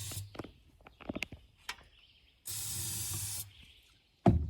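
Two squirts from an aerosol can of starter fluid, a short hiss and then a second hiss lasting about a second, sprayed in to prime an engine that won't start and is thought to be starved of fuel. A few light clicks come between the squirts, and a loud thud sounds just before the end.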